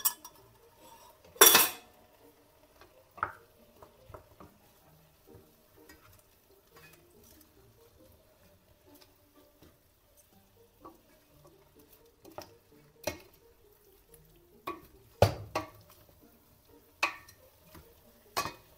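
Wooden spoon stirring and turning a thick tomato and meat stew in a stainless steel pot, knocking against the pot in scattered sharp clacks, the loudest about a second and a half in and again near fifteen seconds.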